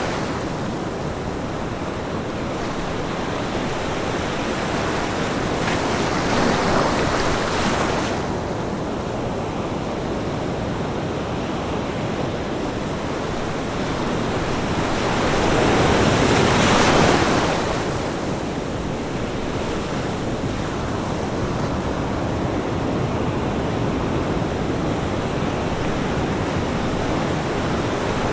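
Ocean waves breaking on a sandy beach: a steady wash of surf, with two louder breakers swelling and fading, one about six seconds in and a bigger one about sixteen seconds in.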